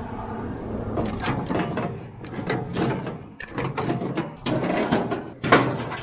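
Kubota BX23S compact tractor's diesel engine running steadily, with a string of irregular metal clanks and knocks from the three-point hitch and wood chipper being uncoupled; the loudest knock comes near the end.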